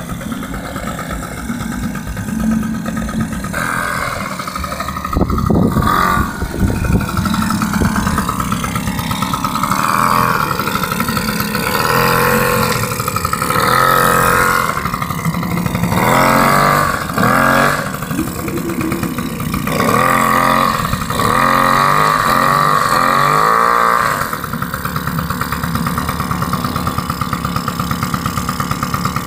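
Suzuki LT50 kids' quad's small two-stroke single-cylinder engine revving up and down as it is ridden through mud, its pitch rising and falling in repeated surges. Near the end it settles to a steadier, lower note.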